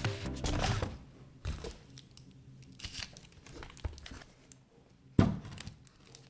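Tape-wrapped plastic parcels crinkling as they are handled and stood on a wooden floor, with scattered light knocks and one sharp thump about five seconds in.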